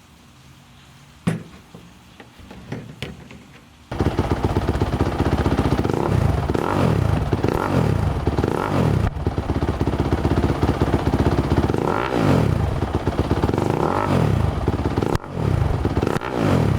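A few light knocks, then about four seconds in a dirt bike engine comes in abruptly through a new aftermarket Rocket exhaust and is revved up and down repeatedly, about five blips of the throttle.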